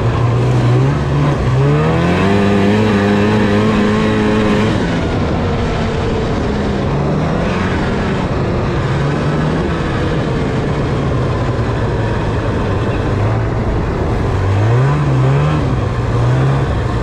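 Two-stroke snowmobile engine under way, revving up about two seconds in and holding high, then easing off and picking up again several times, over a steady rushing noise of wind and track.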